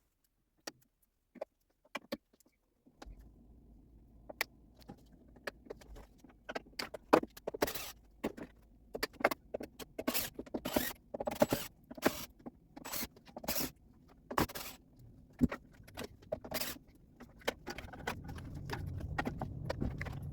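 Irregular clicks, knocks and metallic clinks of a Phillips screwdriver and screws being worked on a pinball machine's lamp panel to free its wire harness. A low hum starts about three seconds in and grows louder near the end.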